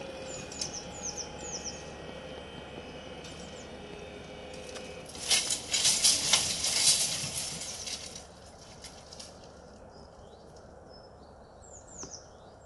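Level-crossing barrier drive humming steadily as the booms lift, stopping about five seconds in. Small birds chirp with short falling calls near the start and again near the end. In the middle comes a few seconds of loud crackling rustle, the loudest sound.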